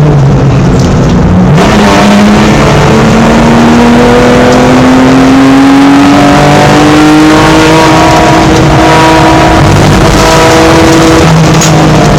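BMW E46 320i's straight-six race engine heard onboard, loud. It is off the throttle for the first second and a half, then back on power with the revs climbing slowly and steadily for about ten seconds, before an upshift near the end drops the pitch.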